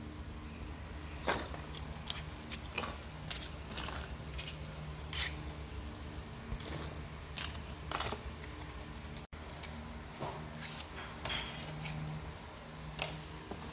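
Wooden matches rattling and clattering as small cardboard matchboxes are slid open and their matches tipped out, in scattered irregular clicks. A low steady hum runs underneath.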